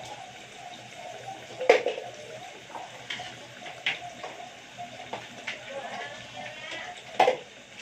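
Kitchen items being handled and set down: two sharp knocks, about two seconds in and near the end, with a few lighter clicks over a steady hiss.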